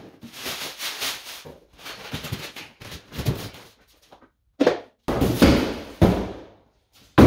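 Cardboard box and plastic packing being handled while a thickness planer is unpacked: a series of rustles and scrapes that start and stop abruptly several times, with short gaps between them.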